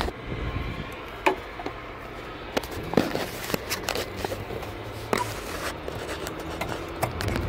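Scattered light clicks and knocks as an H7 halogen bulb and its plastic wiring connector are handled and pushed into a headlight housing by hand, over a low steady hum.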